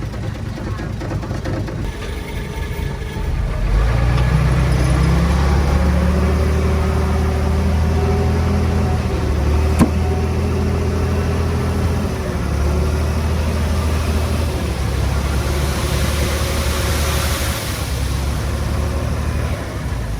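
Diesel engine of heavy earthmoving equipment running at a low idle, then throttling up about four seconds in to a steady, louder drone. There is a single sharp click near the middle.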